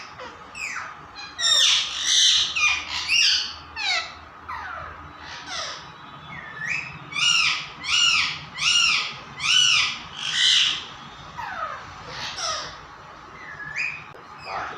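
Pet parrot giving a string of sharp squawking calls, most of them falling in pitch, with a run of about five evenly spaced loud calls about halfway through.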